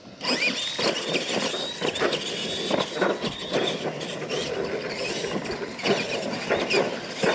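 Two electric R/C monster trucks launching off the start line and racing over dirt. A high motor and gear whine rises, then holds, with many knocks and crunches as the big tyres hit bumps and ramps. The sound starts suddenly just after the start.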